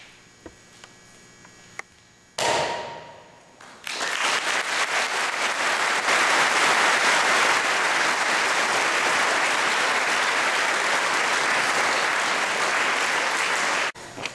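A single sudden loud burst about two seconds in, echoing in the hall, then a crowd applauding steadily for about ten seconds until it cuts off abruptly near the end.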